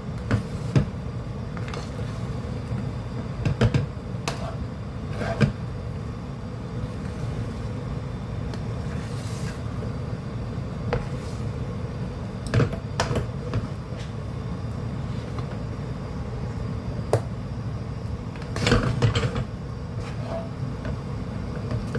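A spoon knocking and scraping against a cooking pot, in scattered short knocks, while a thick, sticky calamay mixture is stirred by hand. A steady low hum runs underneath.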